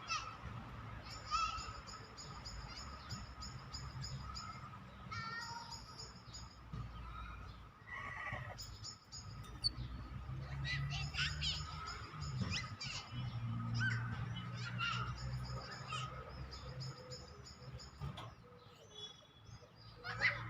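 A songbird singing in long runs of rapid, high trills and chirps, phrase after phrase, over a low steady hum.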